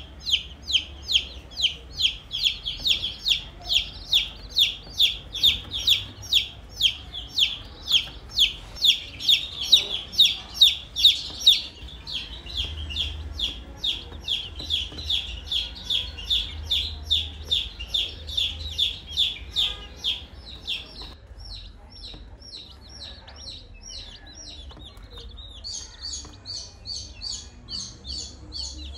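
Baby chicks peeping: a fast, even train of high-pitched peeps, about three a second. A little after two-thirds of the way in the peeping grows softer, and near the end a higher, thinner series of peeps takes over.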